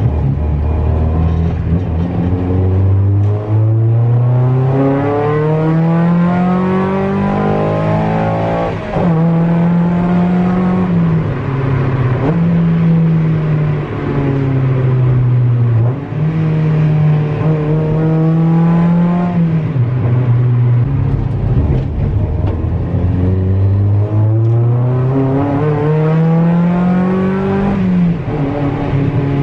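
Mazda MX-5's four-cylinder engine breathing through individual throttle bodies, heard from inside the cabin while driving. The engine note climbs under acceleration and drops back at each gear change or lift, several times, with stretches of steady cruising between.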